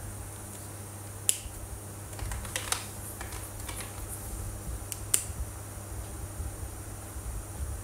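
Sharp plastic clicks from handling felt-tip markers, as caps are snapped on and pulled off: two loud clicks about four seconds apart, with a few softer ticks between them, over a low steady hum.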